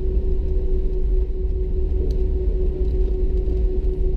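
Airbus A319 cabin noise with the aircraft on the ground: a steady engine hum holding one constant tone over a low rumble.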